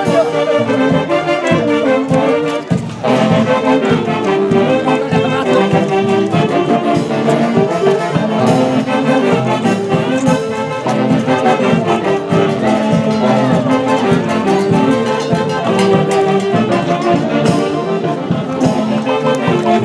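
Live brass band of saxophones and trumpets playing a festive Andean dance tune with a steady beat.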